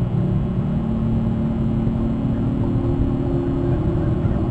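A steady low rumble with a few steady droning tones, like a motor running without a break.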